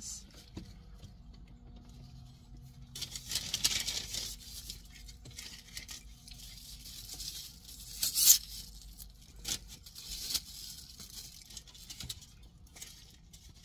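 Takeout food packaging being handled, crinkled and torn open in several short bursts. A loud, sharp crackle comes about eight seconds in.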